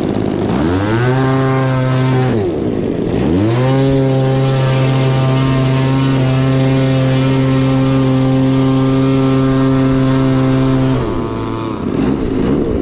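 RC model airplane engine throttled up to a steady high pitch, dropped back briefly, then run up again and held steady for about seven seconds before throttling down near the end.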